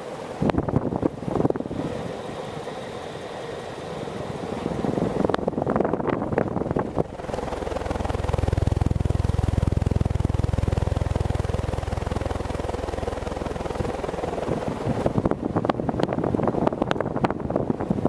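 Supreme Fans JCSB-52 ceiling fan running, its draft buffeting the microphone as wind noise with scattered crackles. A deep rumble swells through the middle and fades again.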